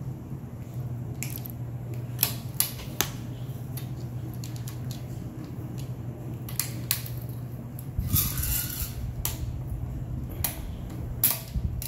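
Irregular sharp metal clicks and knocks, with a longer scrape about eight seconds in, from a flat-head screwdriver and needle-nose pliers working the spring and metal channel of a block-and-tackle window balance. A steady low hum runs underneath.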